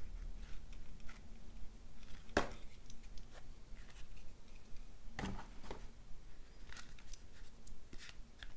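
Handling noise from a thick leather hatchet sheath as the hatchet is drawn out and the sheath is turned over in the hands: leather rubbing, with a few sharp clicks and knocks. The loudest knock comes about two and a half seconds in.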